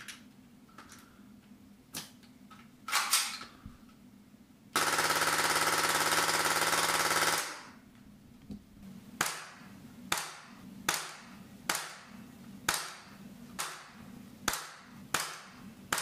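HPA-powered gel blaster firing. First a few faint clicks and a rattle, then a continuous full-auto burst of about two and a half seconds, then nine single pops about a second apart.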